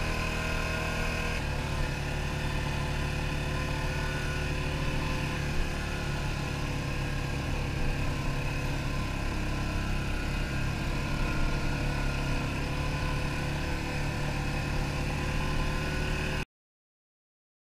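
ATV engine running steadily while riding along a dirt trail, its note shifting about a second and a half in. The sound cuts off abruptly near the end.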